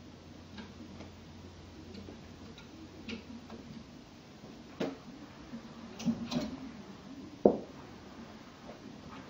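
Light clicks and taps at uneven intervals, with a sharper knock about seven and a half seconds in.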